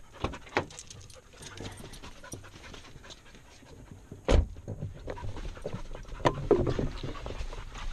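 A dog panting hard and steadily, with a couple of sharp clicks soon after the start, a heavy thump about four seconds in, and bumping and rustling near the end.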